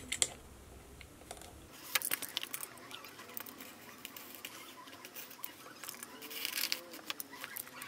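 Utility knife blade scratching and slicing through the plastic shrink-wrap on a cardboard box: a run of faint scratches and small clicks, busiest near the end.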